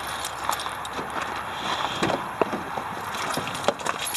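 Footsteps crunching on gravel with scattered clicks, then a sharp click near the end as the pickup's door is opened.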